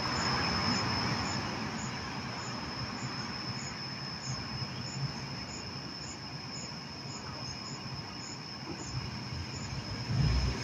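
Night insects, crickets, making a steady high trill with regular short chirps a little under twice a second, over a soft background hum.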